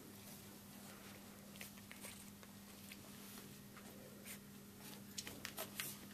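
Faint scratching and rustling of a cat playing with a fabric toy, with a quick run of small sharp clicks about five seconds in, over a steady low hum.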